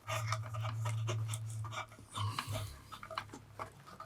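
A mains transformer in a Weller TCP soldering-station power supply humming steadily for about two seconds, then stuttering twice and dropping to a faint hum, with small clicks and handling noises.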